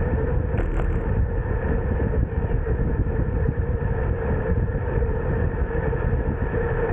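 Steady wind and road rumble from riding a road bicycle at speed, heard on the riding camera's microphone, with a constant hum underneath.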